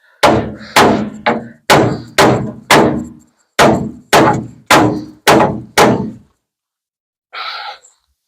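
Hammer blows on the truck's front-end sheet metal, about ten steady strikes roughly every half second, each ringing briefly, as a pinch in the panel is beaten back into shape. The strikes stop a little past halfway.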